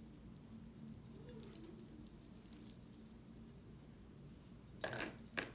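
A bone china teapot being turned over in the hands: faint light ticks, then two short clinks about half a second apart near the end.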